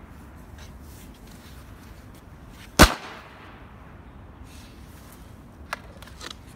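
Large white polyethylene (PE) tray dropped flat onto brick paving: one loud, sharp slap about three seconds in with a short ringing tail, then a few light knocks near the end as the tray is handled again.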